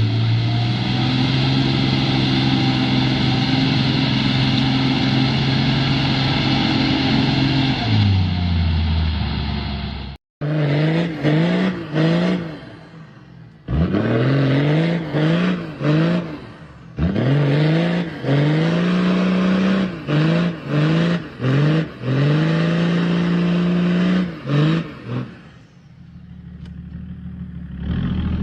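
A vehicle engine running steadily under load, its pitch dropping away after about eight seconds. After a cut, an engine is revved over and over in short bursts, each one climbing in pitch and then breaking off, as off-road vehicles do while struggling for grip.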